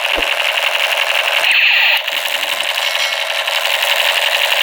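Battery-powered toy gun's electronic firing sound: a loud, steady rattling crackle with rapid fine ticks and a few falling sweeps.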